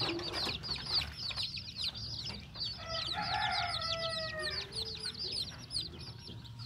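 Young kampung chicken chicks peeping steadily, many short high falling peeps overlapping several times a second. About three seconds in, a longer, lower call sounds under them for a second or so.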